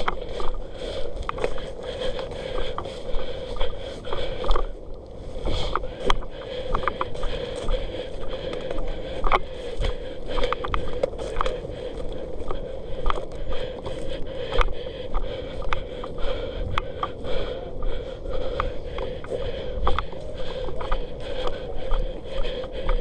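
Rhythmic scraping and rustling, about three strokes every two seconds, with scattered sharp clicks: a player's clothing and gear rubbing against a body-worn camera as he walks.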